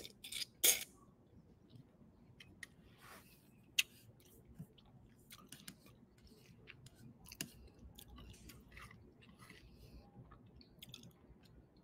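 Close-up eating sounds: a person slurping and chewing a forkful of fideo noodle soup, loudest in the first second, then soft scattered clicks of chewing and mouth sounds.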